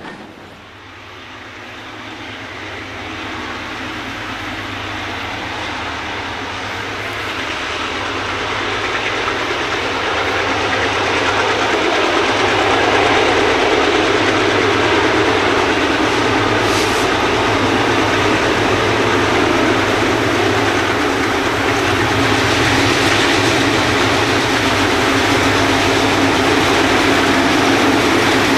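Ex-Burlington Northern GE diesel locomotives hauling a loaded ore train. Their engines run under load as they approach, growing steadily louder over the first dozen seconds, then staying loud as they pass.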